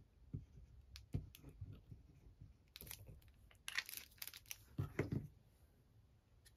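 Cardstock being handled and pressed into place: scattered light taps and brief papery rustles, the loudest rustles about three and four seconds in, then a couple of soft knocks a second later.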